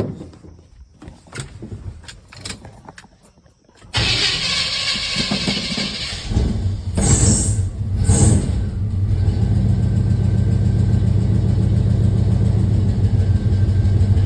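Chevy K20's 350 small-block V8 being started: a few clicks and knocks, then the starter cranks for about two seconds and the engine catches, runs up briefly twice, and settles into a steady idle. The truck is known for a lifter tick, which the owner puts down to a bad lifter.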